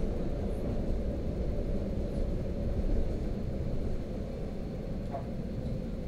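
Suburban electric train running along the track, heard from inside the passenger car as a steady low rumble.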